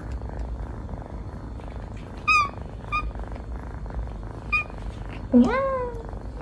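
Kittens playing: a steady low purr runs under three short, high mews, then a longer, louder meow about five seconds in.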